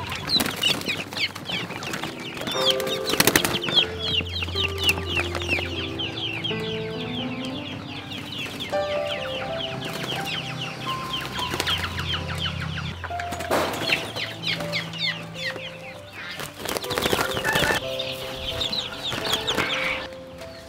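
Caged quail chirping in rapid, high, falling calls, many birds at once, as they are caught and held, with a few loud clattering knocks from the cage and birds; the calls stop near the end. Background music with a simple melody plays underneath.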